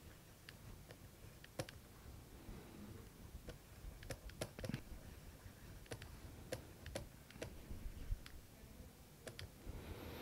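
Faint, irregular taps and clicks of a stylus on a writing tablet during handwriting.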